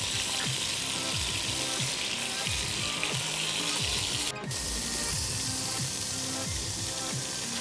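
Hot avocado oil and rendered chicken fat sizzling steadily in a Dutch oven as seared chicken thighs are lifted out, with background music underneath. The sizzle cuts out for a split second about four and a half seconds in.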